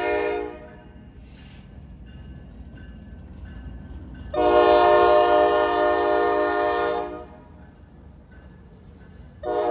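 Norfolk Southern diesel locomotives sounding a multi-chime air horn: a long blast ending about half a second in, another long blast of nearly three seconds in the middle, and a short blast starting near the end, the long-long-short sequence of a grade-crossing signal. The low rumble of the locomotives runs underneath.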